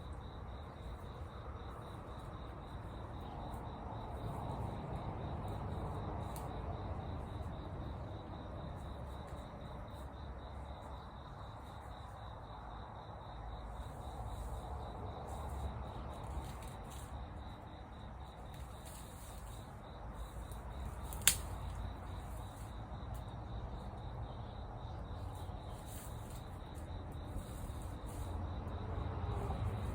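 Insects, likely crickets, trilling steadily as a high thin tone over a low rumble. One sharp click comes about 21 seconds in.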